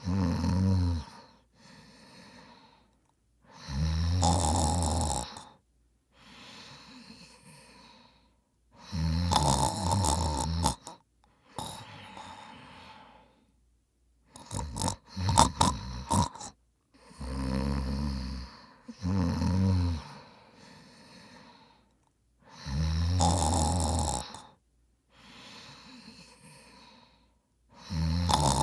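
A man snoring in his sleep: loud, low snores on the in-breath every few seconds, with quieter breathing between them, and a few short sharp snorts about halfway through.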